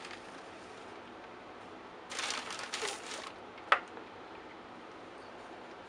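A metal spoon scooping powdered potassium nitrate out of a plastic zip-lock bag: the bag rustles for about a second, two seconds in, then comes a single sharp clink of the spoon a little later.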